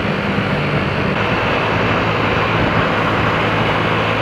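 Motorcycle engine running steadily while being ridden, under an even rush of noise.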